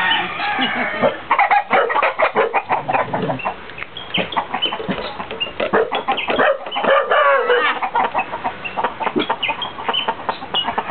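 Fighting cock clucking and squawking over and over in short pitched calls, mixed with many short sharp clicks and knocks.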